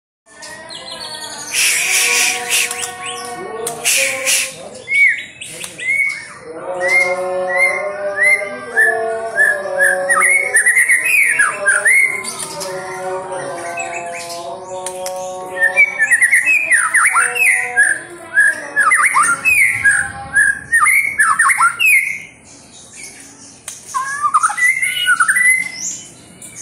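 White-rumped shama (murai batu) singing: a long, varied run of loud whistles and quick downward-sweeping notes, opening with a few harsh notes and pausing briefly near the end.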